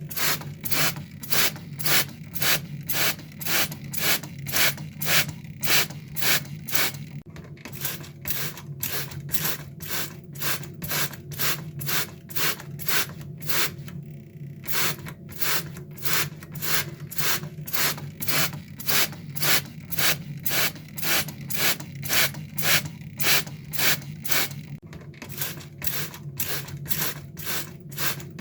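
Water spray squirted in rapid repeated bursts, about two or three hissing squirts a second with a couple of brief pauses, over a steady low hum.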